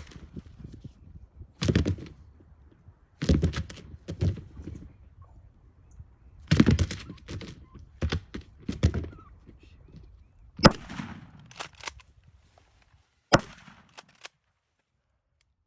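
Two shotgun shots at a turkey, about two and a half seconds apart in the second half, each a sharp crack with a short echo; the first shot was a miss. Before them come several dull thumps and rustles.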